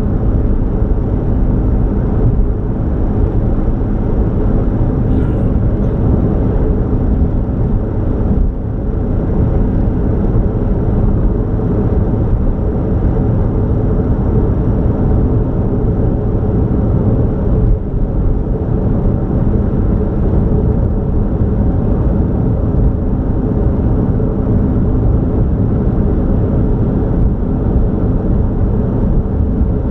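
Steady rumble of a car driving at highway speed, engine and tyre noise running unbroken.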